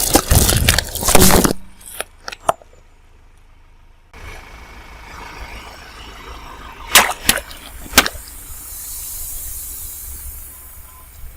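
Things crushed under a car tyre: a loud crunching break for about a second and a half, a couple of single snaps, then three sharp cracks, followed by a high hiss.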